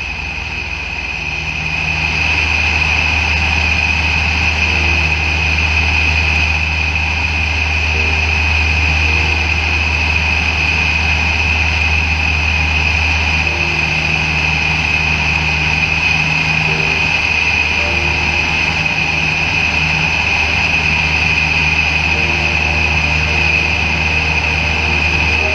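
Piper PA-23 Apache's twin piston engines and propellers heard from inside the cabin in flight: a steady, loud drone with a deep hum and a higher whine. It swells up over the first couple of seconds, then holds steady.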